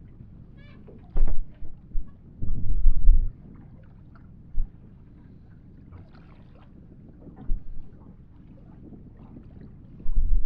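Irregular heavy thumps and knocks of handling on a small boat, with scattered light clicks, over a steady background hiss.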